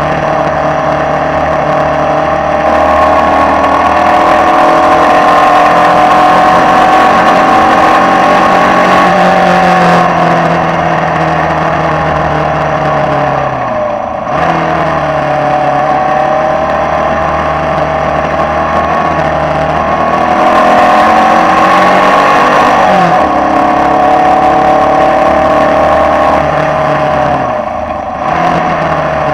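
Formula Vee single-seater's air-cooled Volkswagen flat-four engine, heard onboard, running hard at high revs under power. Its pitch falls as it lifts off for corners about halfway through and twice near the end, then climbs back up as it pulls away again.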